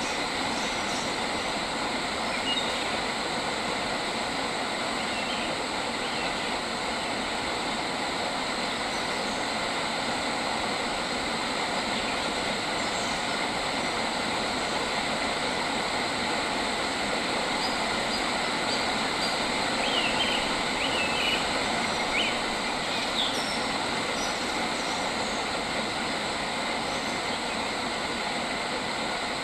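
Outdoor nature ambience: a steady, dense rushing noise throughout, with a few short bird chirps about two-thirds of the way in.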